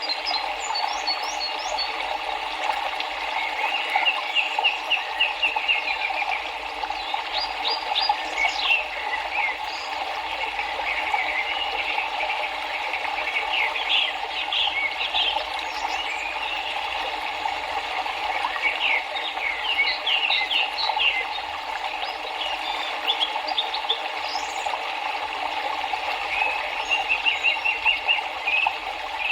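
River water rushing steadily, with birds chirping over it in quick repeated trills and short calls throughout.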